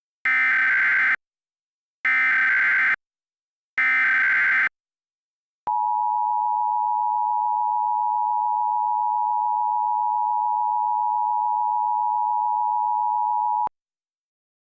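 Three roughly one-second bursts of Emergency Alert System SAME digital header data, a harsh modem-like screech, followed by the EAS two-tone attention signal. The attention signal is held steady for about eight seconds and cuts off sharply. This sequence is the standard opening of an emergency alert broadcast.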